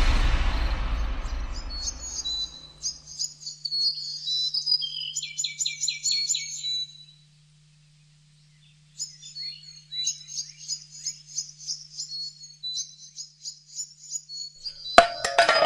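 Small birds chirping and twittering in quick, high, repeated phrases, in two stretches with a second or two of silence between them. A music cue fades out at the start, and sharp loud knocks come in near the end.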